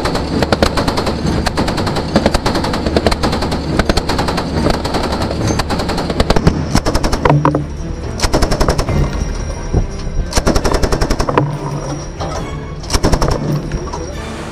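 Machine-gun fire: a long stretch of rapid continuous shots, then after about seven seconds shorter separate bursts with gaps between them.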